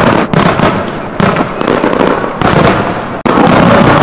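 Aerial fireworks bursting with a dense, continuous crackle and about four sharp bangs roughly a second apart.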